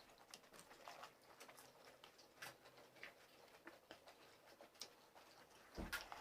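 Near silence with faint, scattered clicks and mouth sounds of people eating pani puri. A brief louder knock comes near the end.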